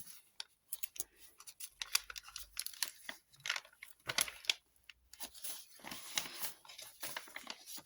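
Paper pages of a handmade junk journal being turned and handled: irregular rustling and crinkling with short scrapes and taps.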